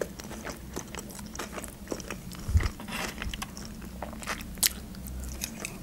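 Close-miked chewing of food: scattered small wet clicks and soft crunches from the mouth, with a brief low bump about two and a half seconds in.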